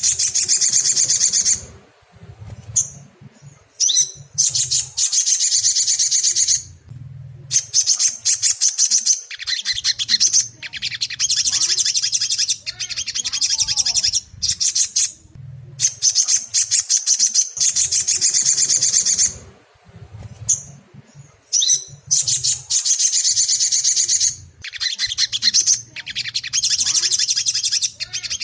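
Little spiderhunter (sogon) song: fast, rattling high-pitched trills in phrases of one to a few seconds, broken by short pauses and repeated again and again.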